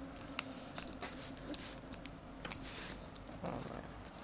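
Faint handling of a taped cardboard parcel: a blade picking and scraping at the packing tape, with a few small clicks and rustles.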